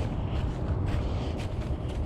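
Wind rumbling on the microphone, with irregular footsteps ticking through it.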